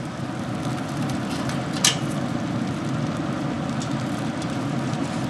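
MAK pellet grill running with its lid open: a steady low rumble of its fan and fire, with one sharp click about two seconds in.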